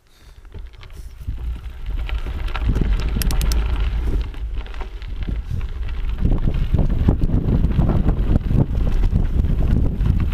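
Wind buffeting the microphone of a camera on a mountain bike riding a dirt singletrack, building over the first couple of seconds and then steady and loud. Rattles and knocks from the bike over the rough trail run through it, busier in the second half.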